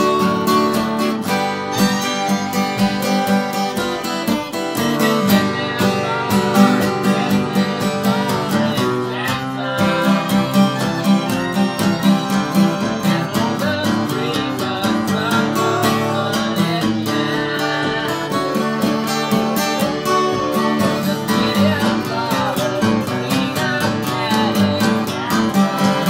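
Steel-string dreadnought acoustic guitar strummed with a pick in a steady, bouncing country rhythm, chords ringing continuously.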